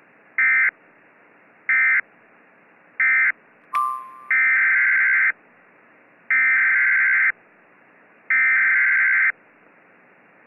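Emergency Alert System SAME digital data bursts, heard through a band-limited radio feed. First come three short bursts about a second apart, the end-of-message code closing the special marine warning. A brief electronic beep follows near the middle. Then come three bursts of about a second each, the header opening the next alert.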